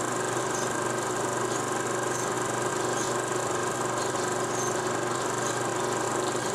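16 mm film projector running: a steady whirring with a fast even flutter, a constant hum and scattered faint ticks.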